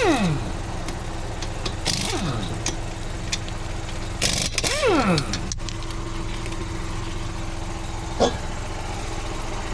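Pneumatic impact wrench on a car's lug nuts: three short bursts, each ending in a falling whine as the air motor spins down. A steady engine hum runs underneath, and there is a single knock near the end.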